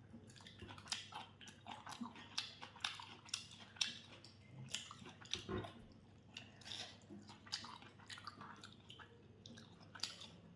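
A person chewing and eating chicken close to the microphone, with soft, irregular mouth clicks and smacks about two or three times a second.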